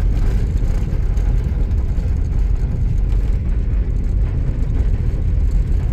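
Steady low rumble of a vehicle driving along a dirt road, heard from inside the cab.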